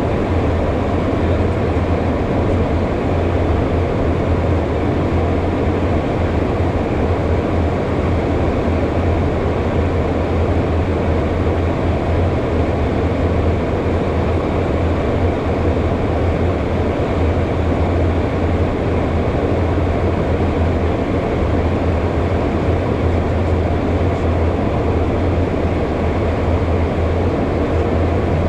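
Steady in-flight cockpit noise of a HondaJet: air rushing past the windscreen over a low, even drone from its twin turbofan engines.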